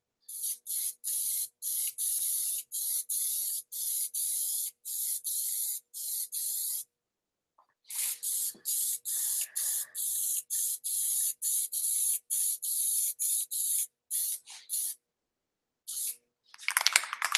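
Aerosol can of Plasti-Dip rubber coating spraying in quick short hisses, about two to three a second. The strokes run for some seven seconds, stop for about a second, start again for about six more, and a few more short sprays come near the end.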